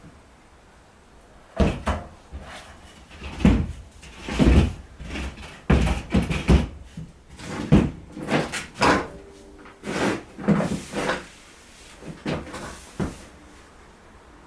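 A series of irregular knocks and clunks, about a dozen of them spread over ten seconds, starting about a second and a half in and stopping near the end.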